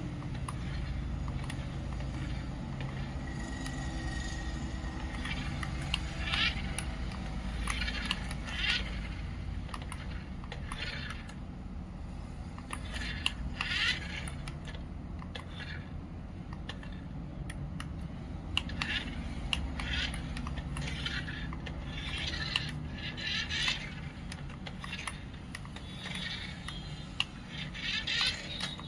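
Toy remote-control cement mixer truck driving: a steady low hum from its small motor, with scattered short clicks and rattles of plastic parts.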